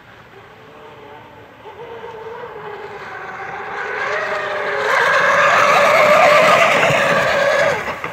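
Radio-controlled fast electric model boat running at speed, a pitched whine from its motor and propeller with the hiss of its spray. It grows steadily louder, is loudest from about five seconds in, and falls off sharply near the end.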